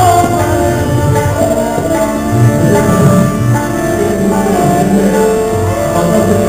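Live Hindustani semi-classical bhajan in raga Bhairavi: a male voice sings held, gliding notes over harmonium and violin, with tabla strokes underneath.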